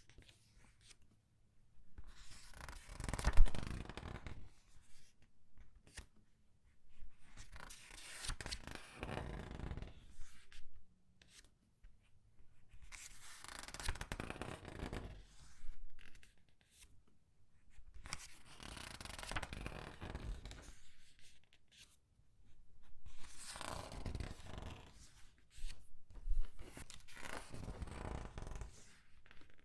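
Paper pages of a comic book being turned and squeezed, rustling and crinkling. About six page turns come a few seconds apart, with quiet between them, and a sharper crackle about three seconds in.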